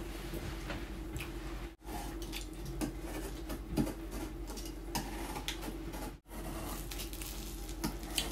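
Close-up eating sounds: small smacks, clicks and squishes of chewing, finger-licking and hands pulling apart fried chicken, over a steady low hum. The sound cuts out briefly twice.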